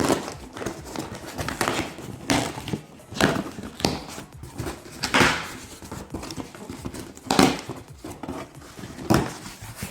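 A cardboard delivery box being opened and unpacked: a string of rustles, scrapes and knocks of packaging and items being handled, with about eight louder ones.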